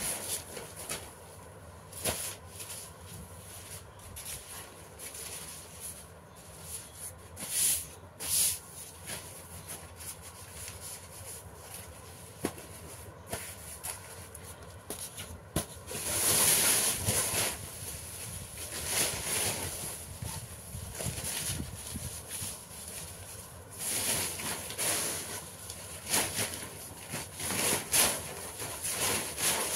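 Paper rustling and crinkling as sheets are folded by hand, in irregular swishes and creases, the loudest about sixteen seconds in and a cluster near the end.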